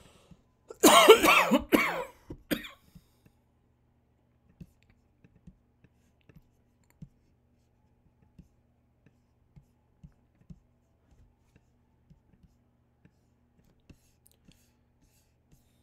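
A man clearing his throat with a loud cough about a second in, followed by a shorter one. Then only faint, scattered mouse clicks, a few seconds apart.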